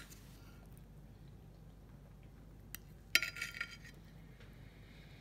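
A table knife clinking against a china dinner plate: a sharp click at the start, a faint tick just before three seconds, then a short run of ringing clinks lasting under a second.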